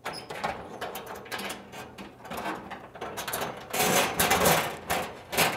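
Through-bolts clicking and rattling as they are pushed through the corner holes of a flood-vent frame and the garage door panel, with scraping handling noise. Louder scrapes come about four seconds in and again near the end.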